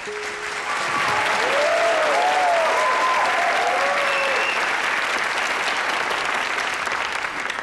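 An audience applauding, with a few whoops rising and falling over the clapping in the first half. The applause swells in over the first second and starts to die away near the end.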